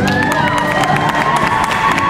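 Audience cheering and clapping, with a high whistle that rises and falls near the start and then a long held high note.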